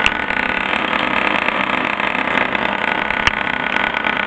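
Energy Beauty Bar electric facial massager, its 10,000 rpm internal motor running while the aluminium bar lies on a tabletop, giving a steady buzz. Two sharp taps come, one just after the start and one about three seconds in.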